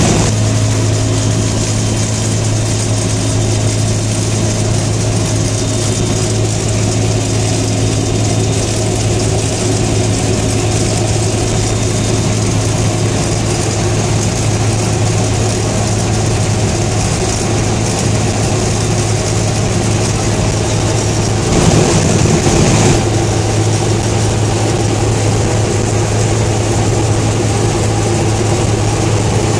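Bell UH-1 Huey helicopter in flight, heard from inside the cabin: a steady, loud turbine and rotor drone with a strong low hum. It swells briefly about three-quarters of the way through.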